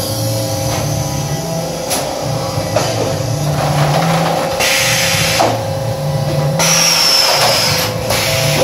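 Thermoforming and trim line running: a steady machine hum with a held tone, a few sharp clanks, and a hiss of compressed air lasting about two seconds around halfway through.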